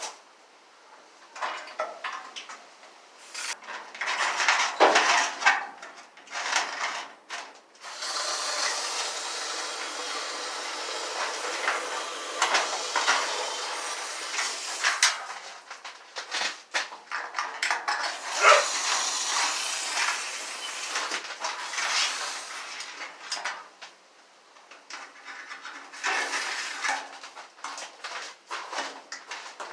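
Aerosol internal frame coating spraying in two long hisses of several seconds each. Before and after them come clatters and knocks of metal being handled.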